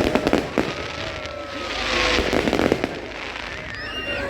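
Fireworks going off: a quick run of sharp bangs and crackles at the start, then a hissing, crackling burst about two seconds in.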